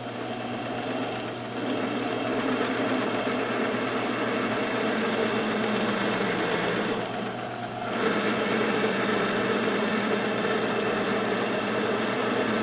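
Old South Bend flat-belt lathe running with a twist drill cutting into steel held in the chuck, a steady motor hum under the grinding of the cut. The cutting grows louder about a second and a half in, drops off briefly around seven seconds as the drill eases off, then picks up again. The spindle is turning fast for the drill, which the machinist judges a little too fast.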